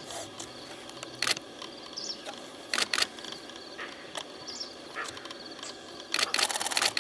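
Camera shutter clicks: single clicks a few times, then a quick burst near the end, over a faint outdoor background with a bird chirping twice.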